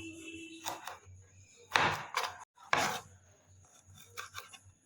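Kitchen knife cutting green beans on a chopping board: about half a dozen uneven cuts, the loudest about two and three seconds in.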